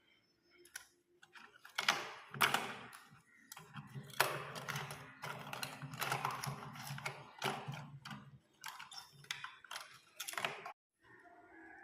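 Irregular clicks, taps and rustling of small plastic parts being handled, such as a hair trimmer, its attachments and packaging.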